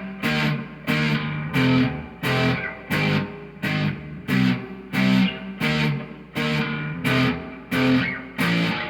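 Electric guitar played through an amplifier: chords struck in a steady rhythm, about three every two seconds, each ringing briefly and fading before the next.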